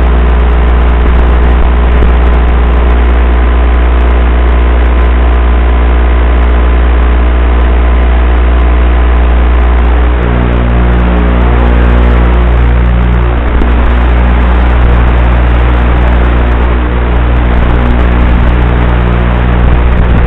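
Loud, steady electrical hum and hiss from the audio channel of an analog FPV video link, with the hum's tone shifting about halfway through.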